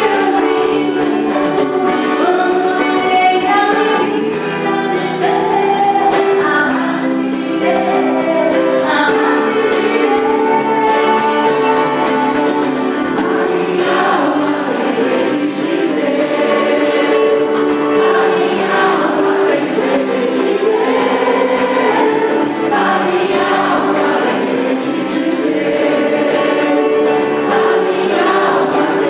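A psalm sung by a female voice with a choir, over a steady rhythmic instrumental accompaniment.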